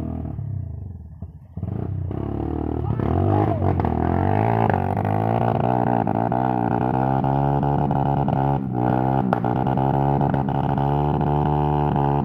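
Trail bike engine revving hard under load on a muddy uphill climb. It comes in loudly about a second and a half in, rises in pitch over the next couple of seconds, then holds at high revs with brief dips.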